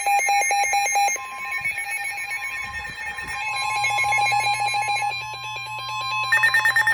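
Emergency alert attention tones: a rapidly pulsing tone and a steady higher tone overlap. A higher, rapidly pulsing tone joins near the end.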